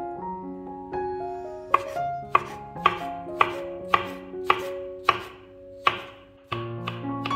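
A chef's knife slices through button mushrooms and knocks on a wooden cutting board in a steady run of cuts, about two a second, starting a little under two seconds in. Background music with held notes plays underneath.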